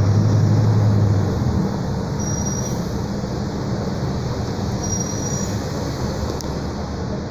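Inside a Mercedes-Benz O-500 U city bus on the move: engine drone that eases off about a second and a half in, over steady road and body noise. Two brief high squeals of the brakes follow as the bus slows in traffic.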